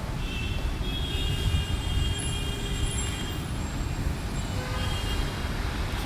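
Phone ringtone playing a few faint, high-pitched held tones that start shortly in and come back near the end, over a loud, steady low rumble.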